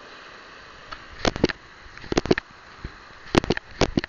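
Shallow surf washing steadily onto the sand, broken by several clusters of sharp crackling knocks close to the microphone, the loudest a little past the middle.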